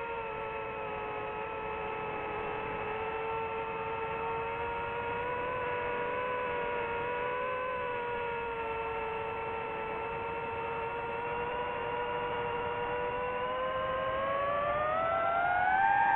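DJI FPV drone's motors and propellers whining steadily in flight, the pitch wavering slightly, then rising and getting louder over the last couple of seconds.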